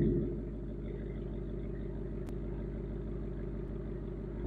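Ford Mustang GT's 5.0-litre V8 through its factory active exhaust with the resonators deleted, dropping back from a rev in the first half second and then idling steadily.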